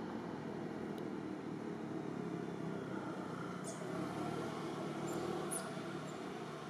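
Steady outdoor background noise with a few faint, short, high chirps near the middle.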